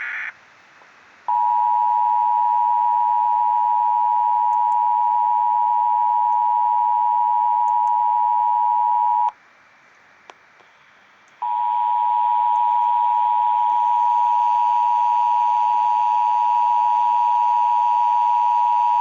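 Emergency Alert System two-tone attention signal: two steady tones sounding together, held for about eight seconds, breaking off for about two seconds, then sounding again until the end. It marks the start of a required monthly test of the alert system.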